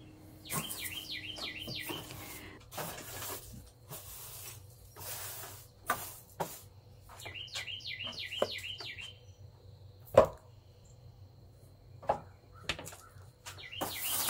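Bristle broom sweeping dry grit off wooden porch boards in short strokes. A bird sings a quick run of repeated chirps twice, near the start and about halfway through, and a sharp knock about ten seconds in is the loudest sound.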